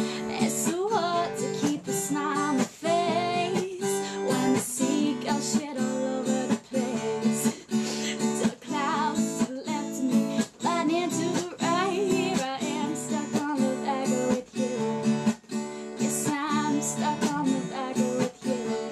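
A woman singing while strumming an acoustic guitar, with quick, regular strums under her wavering voice.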